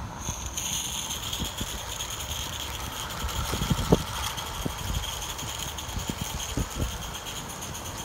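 Accucraft Dolgoch live-steam garden locomotive running along the track hauling a train of loaded skips: a steady hiss of steam with the rattle of the engine and wagons. Gusts of wind thump on the microphone, loudest near the middle.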